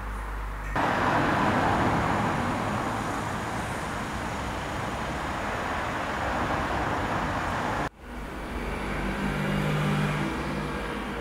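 Road traffic: a steady rush of passing vehicles that starts abruptly about a second in and cuts off suddenly near eight seconds. It gives way to a double-decker bus passing, its low engine hum growing to a peak about ten seconds in.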